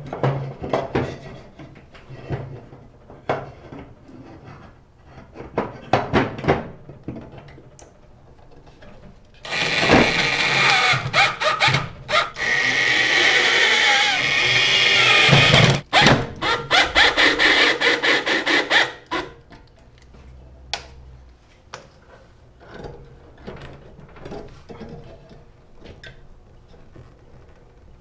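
Cordless drill/driver running in three runs of a few seconds each, starting about ten seconds in, its motor whine rising and falling as it drives in the screws holding the microwave magnetron. Short clicks and knocks of parts being handled come before and after.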